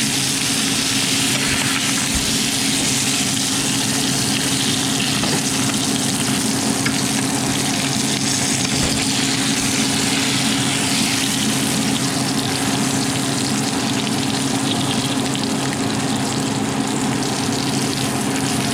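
Steady sizzle of coated brook trout frying in hot oil, with a low steady hum underneath.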